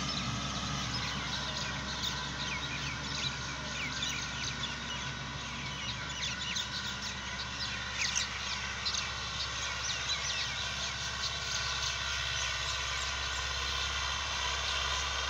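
Euro Ford 5880 tractor engine running steadily under load, pulling a disc harrow, heard at a distance and growing fainter in the second half. Many small birds chirp over it throughout.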